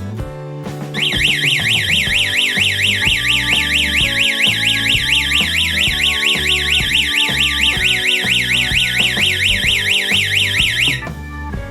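Electronic siren of a wired home security alarm system, a fast warble sweeping up and down several times a second. It starts about a second in and cuts off suddenly ten seconds later, the panel's automatic shut-off after a 10-second alarm.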